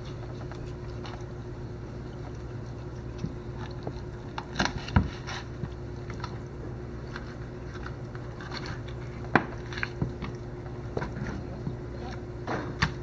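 Knife cutting raw chicken skin and meat against a wooden cutting board: scattered short clicks and taps over a steady hum.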